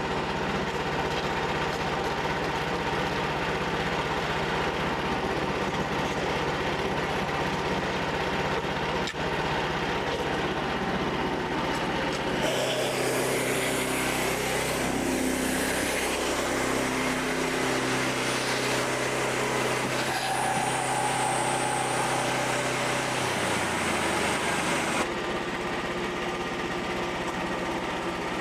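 Frontier OS27 portable bandsaw mill running steadily under its small gas engine. The sound changes abruptly about halfway through, with a hiss added on top, and changes back near the end.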